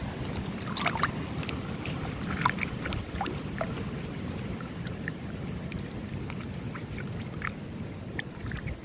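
Creek water running over stones: a steady low rush with many small, irregular splashes and plinks.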